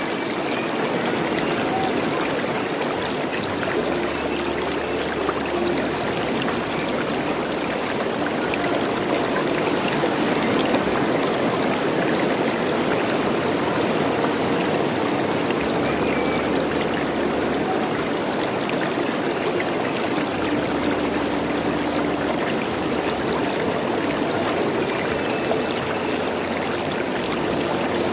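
Running water gurgling steadily.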